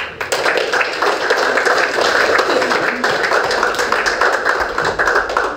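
Audience applauding: a dense, steady patter of many people clapping.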